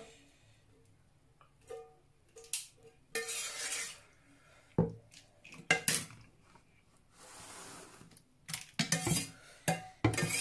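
Metal spoon scraping and clinking against a cooking pan as stew is dished out into plastic food containers: scattered knocks and clinks, a few longer scrapes, and a quick cluster of knocks in the last two seconds.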